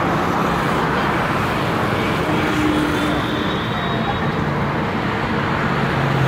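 Steady road traffic noise from a busy main road, an even wash of passing vehicles.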